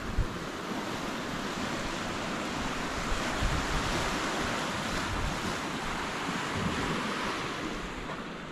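Ocean surf washing against the shore, a steady rush that swells a few seconds in and eases near the end, with wind buffeting the microphone.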